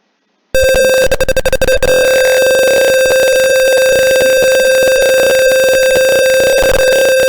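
Simulated piezo buzzer in a Tinkercad Arduino circuit sounding a loud, steady, buzzy tone that starts suddenly about half a second in, with a few clicks in its first second. It is the fire alarm going off because the temperature sensor reads high.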